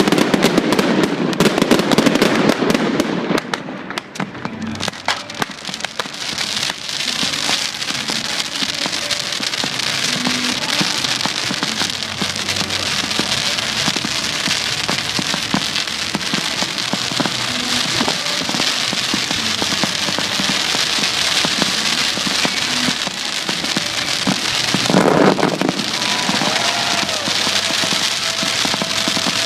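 Daytime fireworks crackling continuously: a dense, fast crackle of many small pops that sounds like heavy rain, loudest in the first few seconds.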